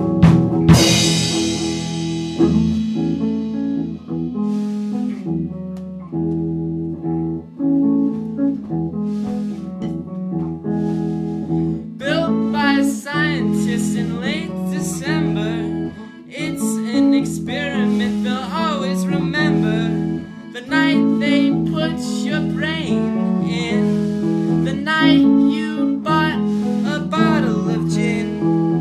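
A band's song: guitar and sustained low notes, with a bright ringing strike right at the start and a wavering high melody line coming in about halfway.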